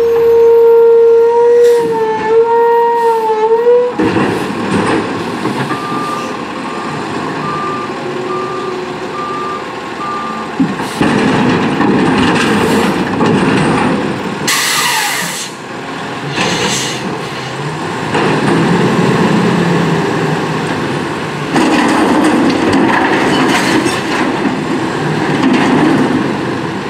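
CCC LET2 front-loader garbage truck working a dumpster. A whine that bends in pitch runs for the first few seconds, then the truck's running noise carries a backup alarm beeping about one and a half times a second. Two short air hisses come about halfway, and the machine noise gets louder near the end as the forks lift the dumpster over the cab.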